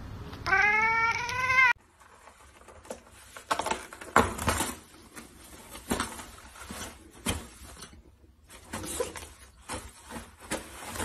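A cat gives one long meow, about a second, rising and then falling in pitch. After a sudden cut, toilet paper rustles and crinkles in uneven scratches and taps as a cat paws and tugs at the hanging roll.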